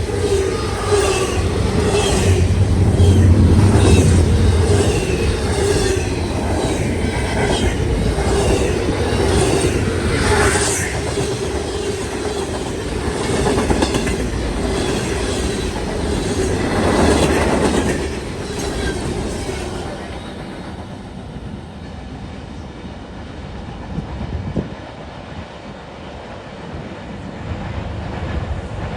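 Norfolk Southern freight train cars rolling past at speed, the wheels clicking rhythmically over the rail joints under a steady ringing tone. About twenty seconds in the clicking stops and the sound falls away to a quieter rumble as the train passes.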